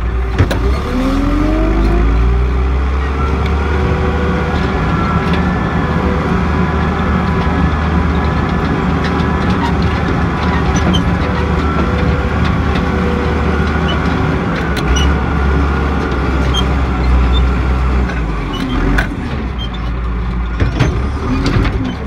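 John Deere 310E backhoe's diesel engine running under work, revving up about a second in, with a steady whine over the engine note.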